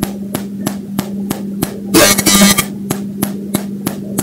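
Unfiltered recording from a microphone held at the ear: a steady electrical hum with sharp clicks about three a second, and a brief burst of hiss about two seconds in.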